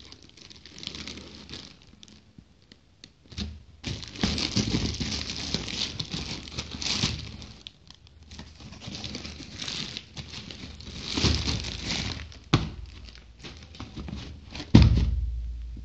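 Packaging being handled and opened by hand: long stretches of crinkling, rustling and tearing, with a few sharp clicks and one heavy thump near the end.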